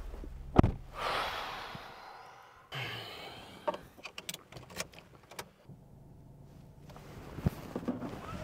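A car door slams shut with a sharp thud about half a second in, followed by rustling as the driver settles into the seat. After that come a run of small clicks and rattles inside the car's cabin.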